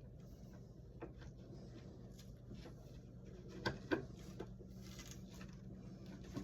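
Faint small clicks and taps of hands and tools working on the wiring of a wall light switch, with a louder pair of clicks about four seconds in, over a steady low hum.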